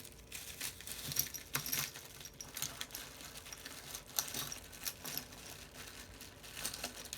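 Irregular light clicks and rattles of small hand tools being rummaged through and handled on a work surface, with no steady rhythm.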